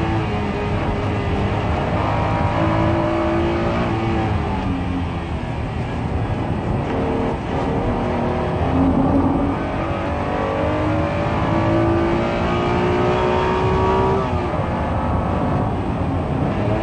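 Honda NSX's 3.0-litre V6 pulling hard under acceleration, heard from inside the cabin. The engine note climbs with the revs and drops sharply at gear changes about four seconds in and again near the end.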